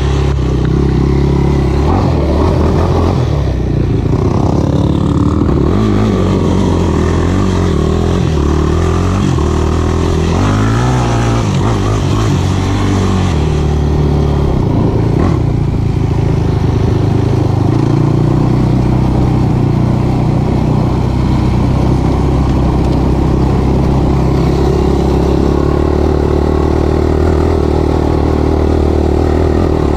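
Single-cylinder four-stroke sport quad (ATV) engine running under way on a trail. The revs rise and fall through the first half and then hold fairly steady.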